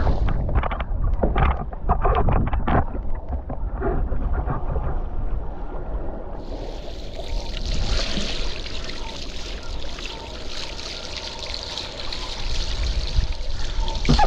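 Water splashing against a foil board in a rapid run of slaps for the first few seconds, then a steady rushing hiss of water and spray, over a constant low rumble of wind on the microphone.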